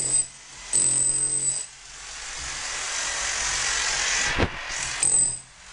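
A power tool switched on and off in bursts of just under a second, each with a hum and a high whine. Between the bursts there is a rising hiss.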